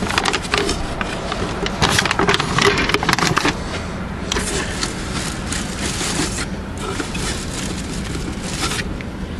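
Cardboard and paper wrapping of a fireworks cake being cut and torn open: a run of crinkles and scrapes, then two long rasping tears about halfway through.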